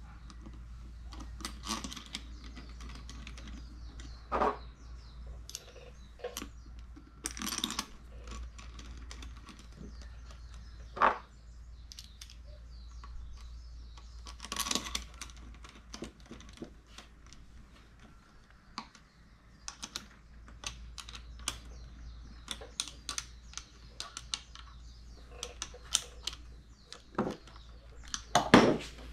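Irregular light clicks and taps of a screwdriver and steel screws against the aluminium carburetor body, with a few sharper knocks as tools and parts are handled.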